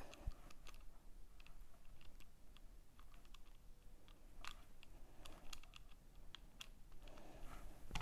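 Faint scattered clicks and ticks of a cordless drill's chuck being twisted open by hand to release a small drill bit.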